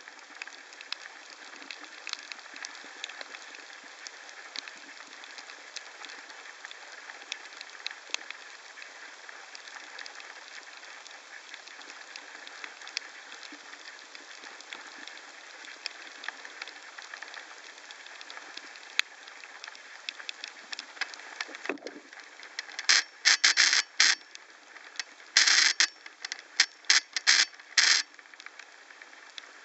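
Underwater reef ambience: a steady crackle of many tiny clicks, the sound of snapping shrimp. Near the end come several loud bursts of rushing noise close to the microphone.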